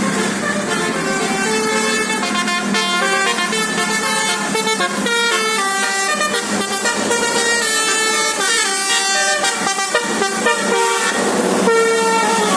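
A bus's Basuri multi-tone musical air horn, the Indonesian 'telolet' horn, playing a fast melody of short stepped notes. The tune breaks off briefly near the end and then starts again.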